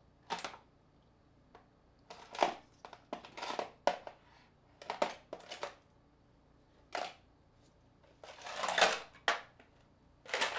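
Phones and a thin white sheet being handled on a tabletop: a string of short, irregular rustles and light knocks, the longest and loudest about eight seconds in.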